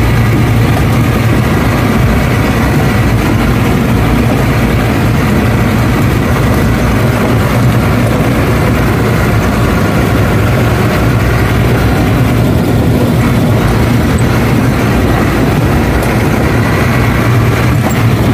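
Diesel engine of an Ashok Leyland truck running steadily as the truck is driven, heard loud from inside the cab.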